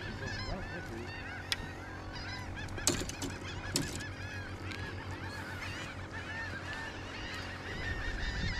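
A flock of seagulls calling continuously, many short overlapping cries. A few sharp knocks come through at about one and a half, three and four seconds in.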